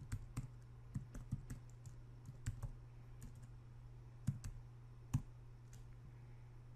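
Computer keyboard keys being typed in irregular clicks, thicker in the first second, with two louder keystrokes about four and five seconds in. A faint steady low hum sits underneath.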